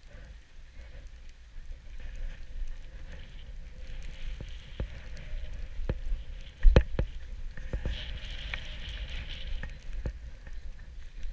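Snowboard sliding and carving over snow: a scraping hiss that swells and fades, over low wind rumble on the camera's microphone. A few sharp knocks come in the middle, the loudest about two-thirds of the way through.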